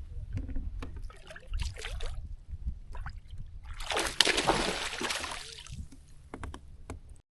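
Water sloshing and splashing against a kayak for about two seconds, loudest around the middle, among small knocks and clicks of handling.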